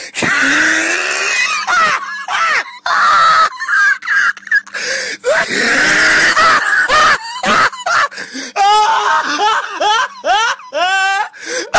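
A loud voice shrieking and laughing with no clear words, in a run of rising, wavering cries toward the end.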